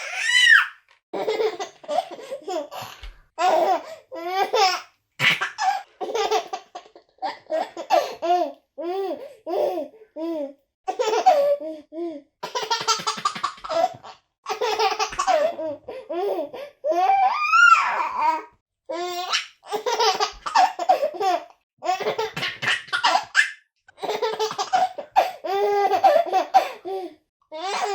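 A baby laughing hard in repeated bursts of gargles and squeals, with short breaths between them and a high rising squeal about two thirds of the way in.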